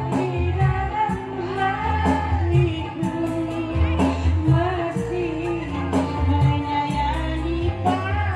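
Women singing into microphones through a PA, over a live band with keyboard, a stepping bass line and a steady beat.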